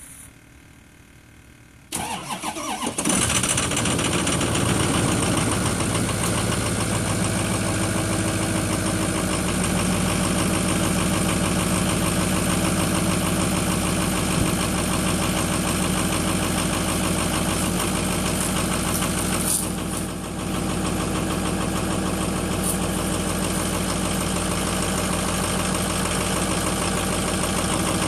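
Ford 6.0 Powerstroke V8 turbo-diesel cranking briefly about two seconds in and catching, then idling steadily. This is its first start after the FICM (fuel injection control module) was repaired, after sitting almost four weeks, and it runs a little rough at first.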